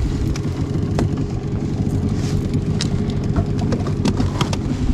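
A boat's outboard motor runs steadily, with a few small clicks on top.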